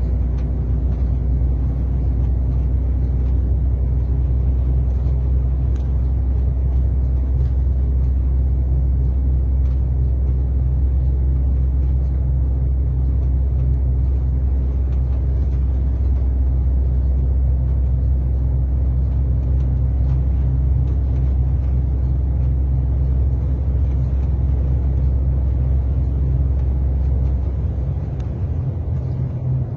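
Steady low drone of a diesel truck's engine and road noise, heard from inside the cab while driving. The deepest rumble drops off briefly near the end.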